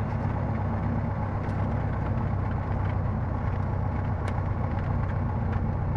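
Light touring aircraft's engine running steadily, an even low note that neither rises nor falls.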